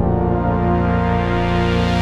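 Background music with sustained held chords and no beat.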